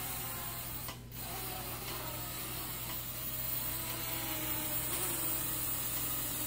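Syma X11 mini quadcopter's small motors and geared propellers buzzing steadily as it hovers, the pitch wavering slightly with throttle corrections. There is a brief dip about a second in.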